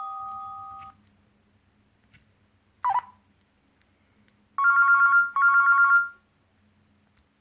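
Nokia C6-00 mobile phone playing ringtones through its loudspeaker: the held notes of one tone fade out and stop about a second in, a short chirp follows, then an electronic telephone-bell ring trills twice, back to back.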